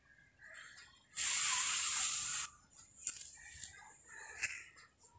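Ash gourd slices frying in hot oil in a pan as they are turned with a metal spatula: a loud burst of sizzling about a second in, lasting about a second and a half, then a few clicks and scrapes of the spatula against the pan.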